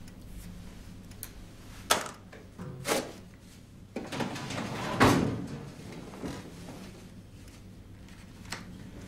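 Office desk drawer being handled: two sharp knocks, then a sliding rumble that ends in a loud thud about five seconds in as the drawer is pushed shut, followed by a few lighter taps.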